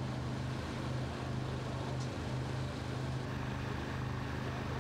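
An engine running steadily at a constant speed, a low even hum.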